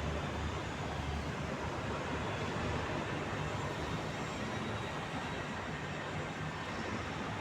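Steady city traffic noise: an even hiss of road sound with a low rumble that eases off about a second in.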